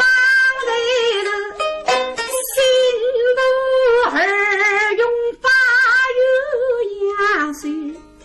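A woman singing a slow, drawn-out Suzhou tanci (pingtan) melody in a high voice, holding long notes that waver in pitch, over light plucked pipa accompaniment. The voice breaks off briefly about five seconds in and fades near the end.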